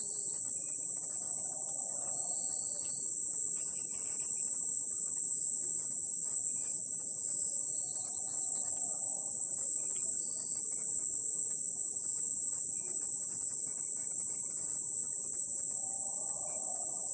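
Rainforest ambience dominated by a steady, high-pitched insect drone of crickets. Faint bird chirps come and go, and a faint lower call sounds three times, about seven seconds apart.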